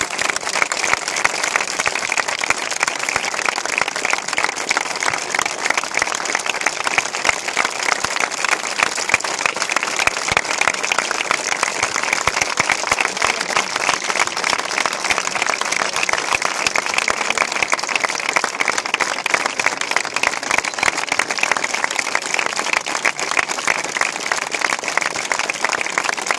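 A large crowd applauding steadily and without a break, with many hands clapping close by.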